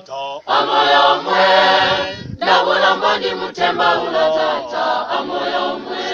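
A choir singing with many voices together, with a short break about two seconds in.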